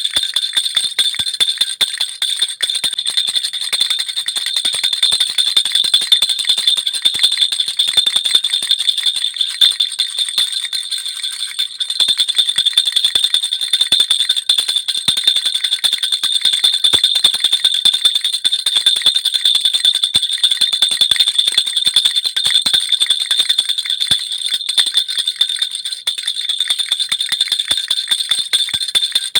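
Baby rattle (jhunjhuna) shaken without pause: a dense, steady jingling of small bells with a high ringing tone.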